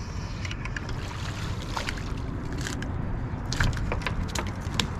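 Wind rumbling on the microphone, with scattered light clicks and taps that grow more frequent after about two seconds.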